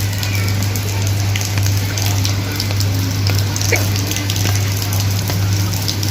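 Steady rain falling, with many small drop ticks as it patters on an umbrella overhead, over a constant low hum.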